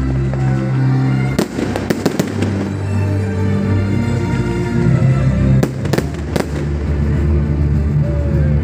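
Aerial firework shells bursting overhead with sharp cracks and bangs, one about a second and a half in, a quick cluster just after, and several more past the middle, over steady music playing underneath.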